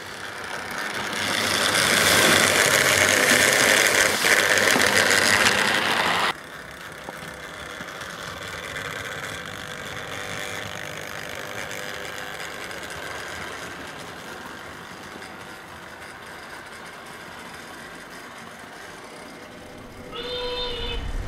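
A freshly oiled 00 gauge model steam locomotive running on its track, with a steady mechanical noise from its motor and wheels. The noise grows loud as the locomotive passes close, drops suddenly to a quieter running sound about six seconds in, and a brief pitched tone sounds near the end.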